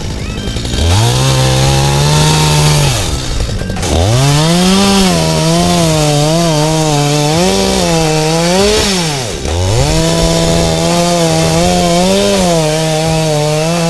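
Chainsaw engine revving up to full throttle again and again. It drops low and sweeps back up about a second in, about four seconds in and about nine and a half seconds in. At full speed its pitch wavers as the chain works through wood.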